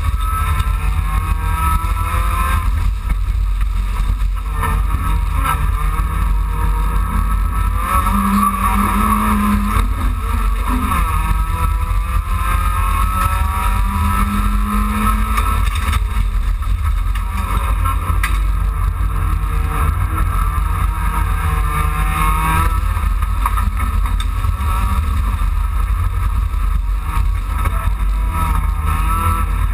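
Racing Dacia Logan's engine heard from inside the cabin under hard driving, its pitch climbing and dropping again and again through the gears, over a heavy low rumble.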